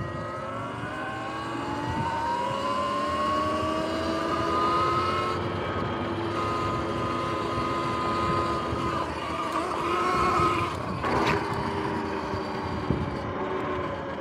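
Sur-Ron X electric dirt bike's motor and chain drive whining as it rides on a freshly replaced chain and sprockets. The whine rises in pitch as the bike speeds up over the first few seconds, holds steady, then drops lower shortly after a brief rushing noise about eleven seconds in, with tyre and wind noise underneath.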